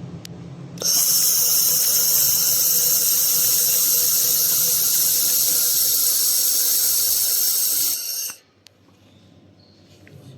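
Laser welding and cleaning machine firing on metal: a steady, high-pitched hissing whine that starts about a second in and cuts off suddenly about eight seconds in.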